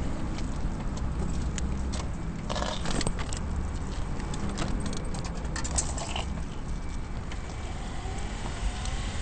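Open vehicle being ridden over wet asphalt: a steady low running rumble with road and tyre hiss, and a few sharp clicks about three seconds in and again around five to six seconds.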